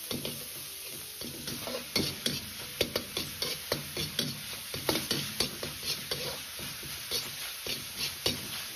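Minced pork sizzling in hot oil in a wok while a metal ladle stirs and scrapes it around. The ladle clacks and scrapes against the wok irregularly, several times a second, more often from about two seconds in. The pork is being fried to drive off its excess water.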